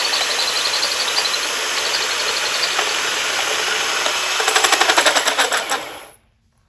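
Power tool cutting into metal, running steadily and then chattering rapidly for about a second before it stops suddenly about six seconds in.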